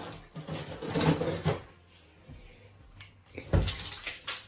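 Quiet kitchen handling noises, with one dull thump about three and a half seconds in followed by a few light clicks.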